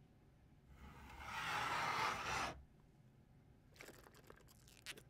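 A person drinking through a straw: a long, noisy slurp lasting about two seconds that stops abruptly, then a few short sucking crackles near the end.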